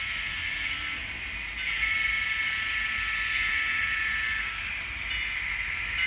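N scale SD40-2 model locomotive's XL Systems sound decoder playing diesel engine sound through its tiny speaker, thin and high-pitched with steady tones in it. It gets louder about two seconds in and eases back near the end.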